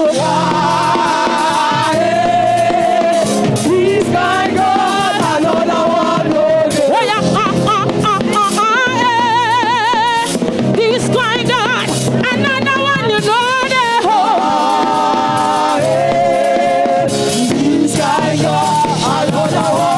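Live gospel worship music: a singer's voice with strong vibrato over a band accompaniment with steady bass notes and percussion.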